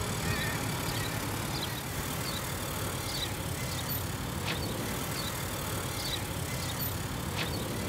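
Minivan rolling slowly: a steady low rumble, with faint high chirps about once a second.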